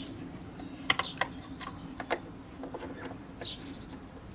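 Metal hand tools clicking and clinking on bolts in an engine bay: a handful of sharp, separate clicks over the first three seconds. A bird chirps about three seconds in, over a faint steady low hum.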